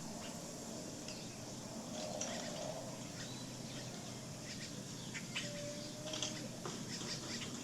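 Unidentified short chirps and clicks, with a couple of brief steady whistle-like tones, over a steady background hiss.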